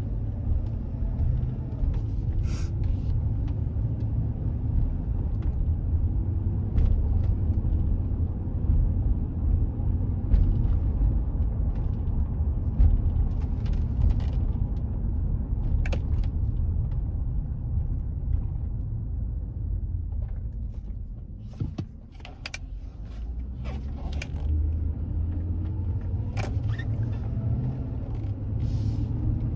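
In-cab sound of a 2012 GMC Sierra 1500 pickup being driven at low speed: a steady low rumble of engine and road, with scattered short clicks and knocks. The rumble drops briefly about three quarters of the way through.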